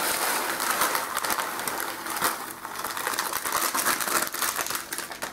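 Plastic bag crinkling and rustling as muesli and dried fruit are shaken out of it, a dense steady crackle that eases a little near the end.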